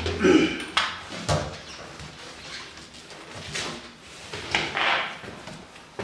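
Irregular knocks, clatter and scrapes of parts being handled and fitted by hand, with a loud knock right at the start and a short scrape near the end.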